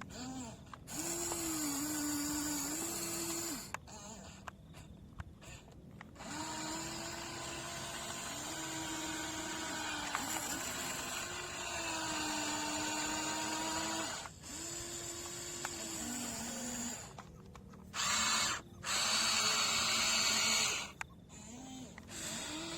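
Small electric motors of radio-controlled construction models whining in runs of a few seconds, separated by short pauses, their pitch sagging and recovering as they work under load.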